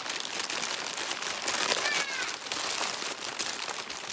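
Tissue paper crinkling and rustling as a gift is unwrapped by hand, with a short high call, rising then falling, about two seconds in.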